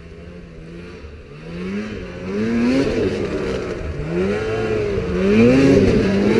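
Snowmobile engine revving repeatedly as the rider throttles through turns on snow. The pitch rises again and again and the engine gets louder as the machine comes close near the end.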